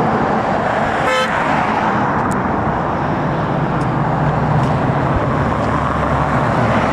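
Road traffic passing on a highway bridge, with a short car horn toot about a second in. A vehicle's engine rumble builds in the second half as it passes close by.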